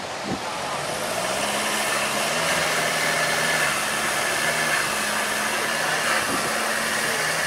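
Holden Colorado ute's engine rising in pitch about a second in, then held under load as it pushes through soft sand with its wheels spinning, over a steady hiss.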